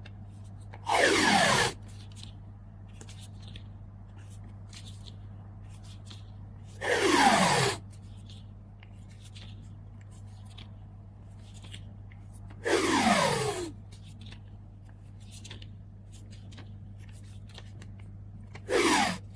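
Adhesive tape pulled off a roll four times, about every six seconds. Each pull is a loud, short screech that falls in pitch, and the last is briefly shorter. Light handling ticks and a steady low hum run beneath.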